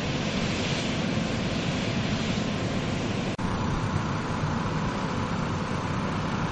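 Car-carrier wagons of a train rolling along the track, making a steady rumble with a noisy hiss. A little over three seconds in, the sound cuts abruptly to a different steady noise with a faint hum.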